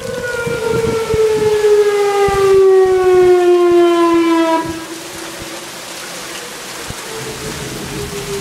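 Outdoor tornado warning siren wailing, its pitch falling slowly; about five seconds in it drops in level and carries on fainter. Rain falls throughout.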